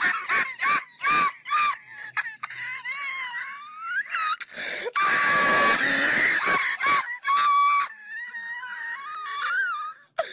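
Hysterical, very high-pitched laughter from a man: quick whooping bursts for the first couple of seconds, then long held shrieking wails.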